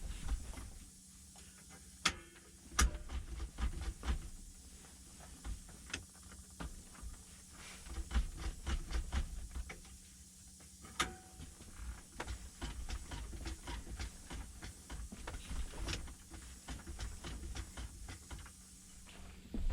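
Handling noises: irregular clicks, taps and low thumps, typical of a truck seat and its packing being moved and worked by hand.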